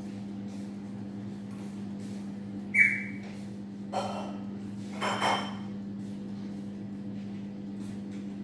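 A household pet's short high calls over a steady low hum. The first call, about three seconds in, is the loudest and dips slightly in pitch; two shorter calls follow around four and five seconds.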